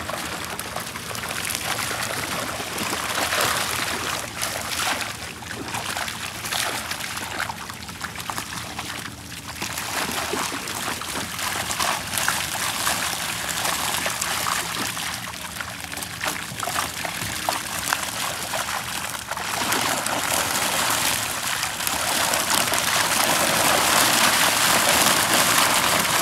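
Shallow, muddy water splashing and trickling as a fishing net with its catch is hauled through it. The sound grows louder in the last few seconds.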